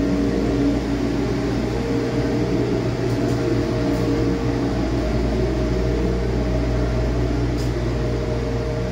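Mack MP8 13-litre inline-six diesel engine running steadily at a constant speed on a test stand. The seller says it runs excellent.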